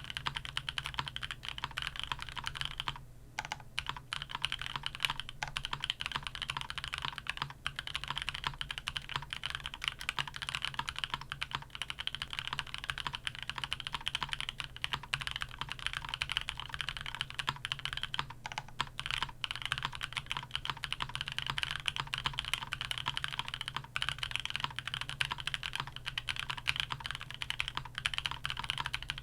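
Continuous fast typing on a custom Lego-cased 60% mechanical keyboard with stock Vertex V1 switches, lubed TX stabilizers, a carbon fiber plate, gasket mounting and plate and case foam: a dense stream of key clacks with a few brief pauses.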